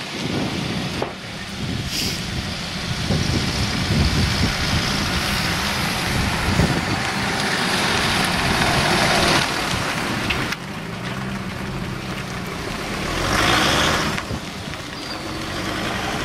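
Cars driving past at low speed: engine hum and tyre rush. About ten seconds in it drops suddenly to a quieter engine hum, which swells briefly a few seconds later.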